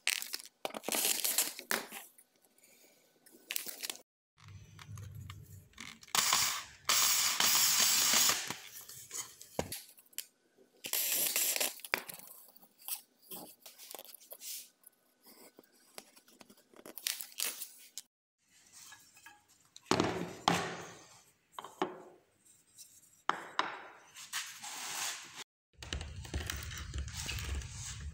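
Hand-tool work on an olive-wood board: separate stretches of scraping and rubbing as a template is marked out and fixed with a screw. Near the end a carving gouge cuts into the wood, with a quick run of low knocks.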